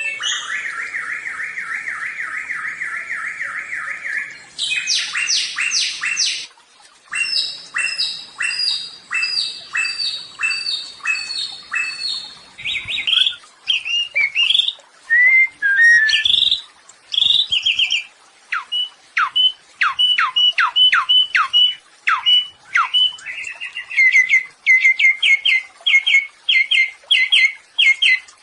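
A samyong songbird singing loud, varied song: a fast rattling trill for about four seconds, then phrase after phrase of rapidly repeated sharp, downward-sweeping notes.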